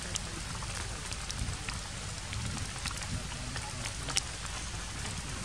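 A steady, even hiss, like light rain or running water, with a few sharp light ticks scattered through it.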